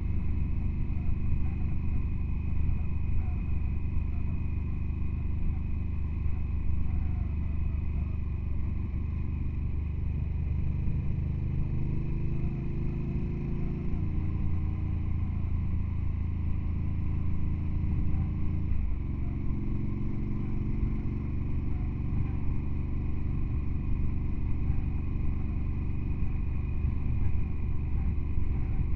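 A motor vehicle's engine running steadily under way. Its note shifts up and down a few times, with a sudden change in pitch about two-thirds of the way through, like a gear or throttle change.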